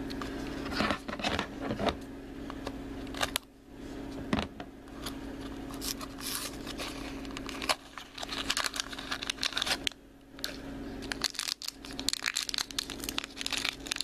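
Taped cardboard blind box being handled and its flap peeled open, then a foil blind bag crinkling and tearing as it is opened, with scattered clicks and rustles; the crinkling grows dense near the end.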